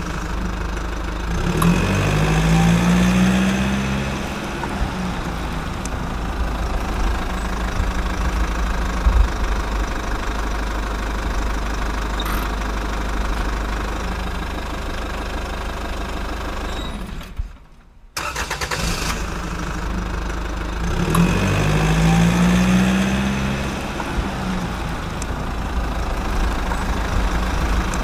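Vehicle engine sound effect laid over the toy footage: an engine starting up and then idling steadily. It cuts out briefly about 18 s in, and the same start-up-and-idle recording plays again.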